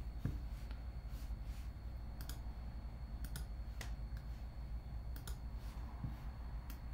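Scattered clicks of a computer mouse, some in quick pairs, over a low steady hum.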